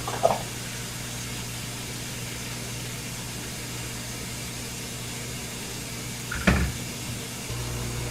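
Steady hiss of running water, with one knock about six and a half seconds in and a low hum coming in near the end.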